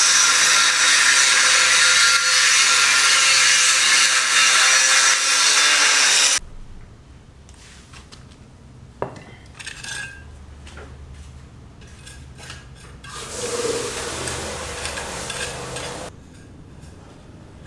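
A power tool cutting, loud and steady for about six seconds, then stopping abruptly. After it, quieter work sounds follow: a sharp knock about nine seconds in and a stretch of scraping near the end.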